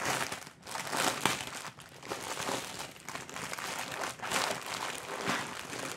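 Packaging crinkling and rustling in irregular bursts as it is handled and opened by hand to get out a set of melamine cleaning sponges.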